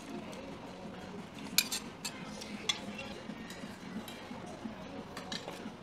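Metal spoon stirring rice into saucy noodles in a stainless steel bowl, scraping and clinking against the metal, with a few sharp clinks about one and a half to three seconds in and again near the end.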